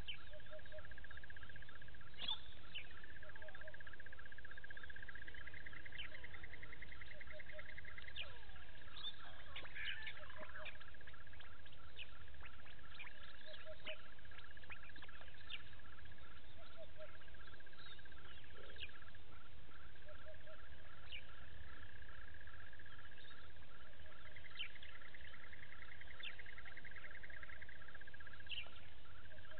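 Outdoor bush ambience: a steady, rapidly pulsing high trill with short high-pitched bird chirps scattered throughout, over a low rumble.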